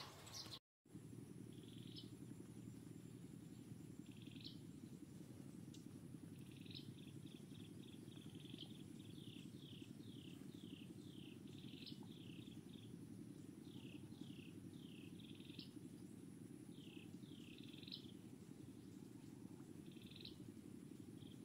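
Faint outdoor ambience: a steady low rumbling hiss, with a bird calling in short falling chirps, now singly, now in quick runs of several a second. The sound drops out for a split second about a second in.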